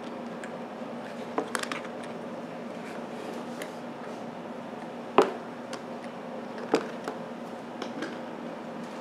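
Handling of a wall clock with a black plastic back: scattered light clicks and knocks as it is moved and turned, with the loudest knock about five seconds in and another a little later, over a faint steady hum.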